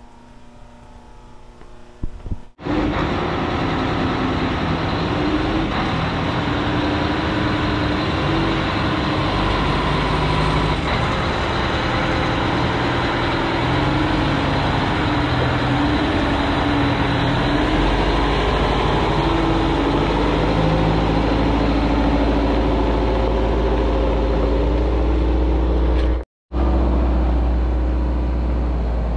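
Heavy truck engine running steadily, cutting in suddenly about two and a half seconds in. Its low rumble grows heavier about two-thirds of the way through, and it drops out for a moment near the end.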